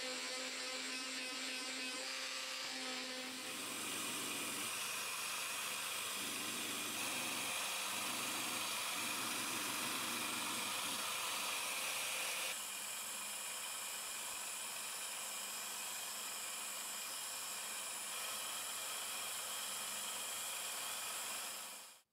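An electric detail sander runs against a wooden hammer handle, then, a few seconds in, a bench disc sander runs steadily as the handle is worked against its spinning sanding disc. The machine noise cuts off abruptly near the end.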